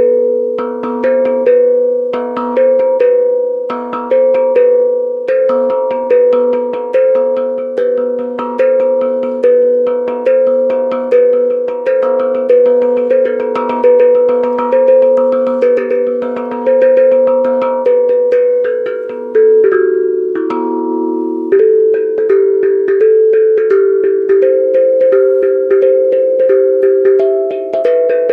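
A struck pitched percussion instrument played by hand in a steady rhythmic pattern: quick light strikes between stronger accents, each note ringing and fading. The melody shifts to a new set of notes after a brief break about 21 seconds in.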